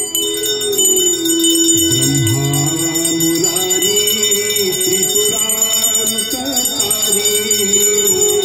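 Hand bells ringing steadily over a sung Hindu devotional hymn, the aarti chant carrying a wavering melody underneath the bell tone.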